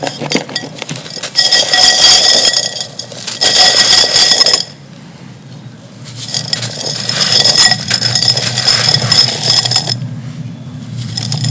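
Dry, dusty clay-pot material with tiny glass bits being crushed and crumbled by hand: gritty, crackly crunching in long bursts, with brief pauses about five and ten seconds in.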